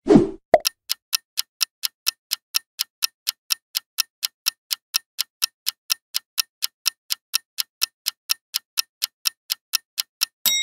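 A short swoosh transition sound effect, then a clock-ticking countdown sound effect, about four ticks a second, that marks the quiz timer running down. It ends in a brief ringing chime near the end.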